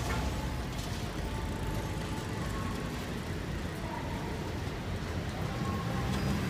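Road vehicle engine running steadily with a low rumble, amid street traffic noise.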